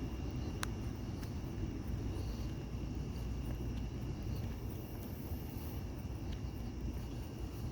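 Crickets trilling steadily in a high thin tone over a low, steady outdoor rumble, with one sharp click about half a second in.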